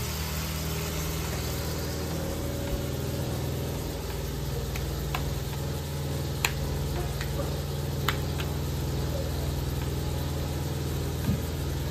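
Steady low motor hum with faint sizzling, broken by a few sharp clicks about midway.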